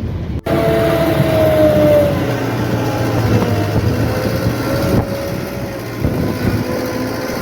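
City bus running, heard from inside the cabin: steady drivetrain noise and low hum with a whine that slides down in pitch over the first few seconds, after a sudden break about half a second in.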